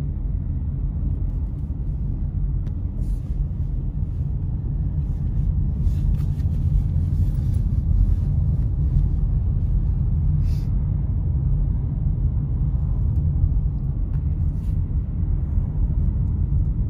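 Steady low rumble of a car's tyres and engine on a wet road, heard from inside the cabin while driving, with a few faint brief ticks.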